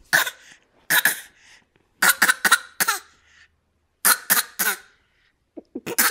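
A small child's put-on fake cough: about five bouts of short coughs with pauses between, some single and some in quick runs of three or four.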